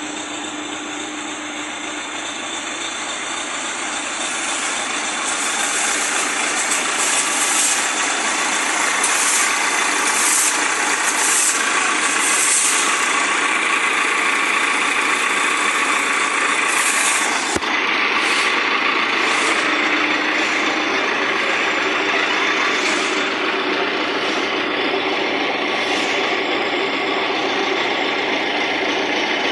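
Massey Ferguson 292 tractor engine running steadily. It grows louder over a few seconds, starting about four seconds in, then holds at that level.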